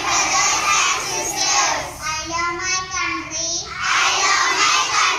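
Two young children chanting together into a microphone in a loud, sing-song voice.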